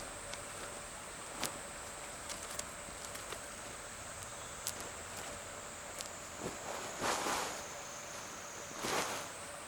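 Outdoor ambience by a babbling stream with a steady high insect drone. Scattered small clicks and knocks run through it, and two short rustles come about seven and nine seconds in, typical of someone handling gear or wood.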